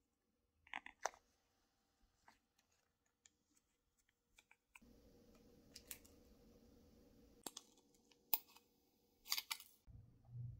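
Small sharp clicks and crinkles of a thin plastic candy-kit tray and packet being handled: a pair of clicks about a second in, then scattered crackles a second or so apart over a faint steady hum that comes in about halfway.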